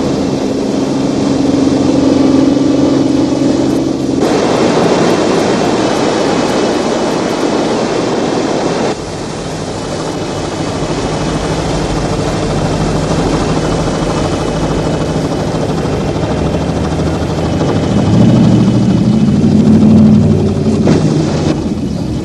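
Motorboat engine running at speed with the rush of water around the hull, the sound jumping abruptly twice at shot changes. Near the end the engine revs up and down as the boat comes in to the bank.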